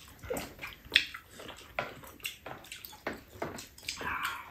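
Noodles and broth being slurped and eaten from bowls, a string of short, irregular wet sounds.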